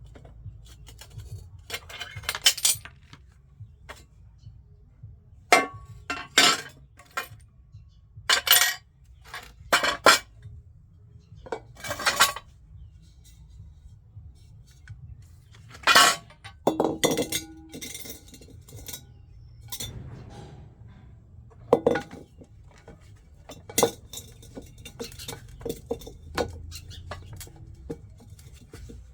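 Shards of shattered tempered glass from a washing machine door clinking and rattling together, in about ten separate bursts.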